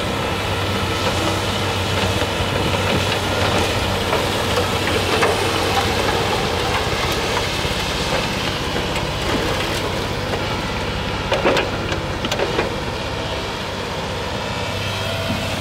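Øveraasen UPV450 snowblower on a Volvo L110H wheel loader throwing snow, a loud steady rush of fan and heavy engine noise, mixed with the diesel engine of an 8-tonne Hitachi excavator running close by. A few short clanks come about three quarters of the way through.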